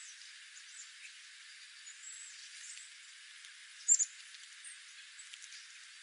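Small songbirds giving short, high chip calls over a faint hiss, with one louder double chip about four seconds in.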